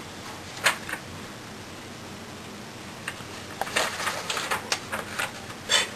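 Quiet room tone: a steady faint hiss with a few scattered soft clicks and rustles, a handful of them coming close together in the second half.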